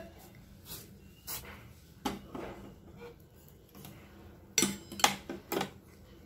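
Scattered short metallic clinks and knocks of steel kitchenware on a steel pot, with three louder ones in quick succession near the end.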